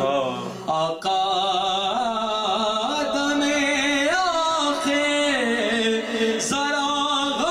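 A man singing an Urdu naat (devotional song to the Prophet) solo, drawing out the word "Aaqa" in long, wavering, ornamented held notes.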